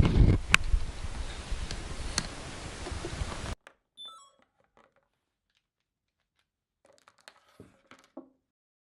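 Rustling and clicking handling noise from a clip-on lav mic on the action camera's microphone input. About three and a half seconds in it cuts off abruptly to near silence, broken only by a few faint clicks, as the mic is swapped out.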